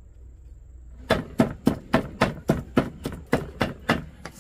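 Knife chopping on a cutting board in a steady, quick rhythm of about four strokes a second, starting about a second in.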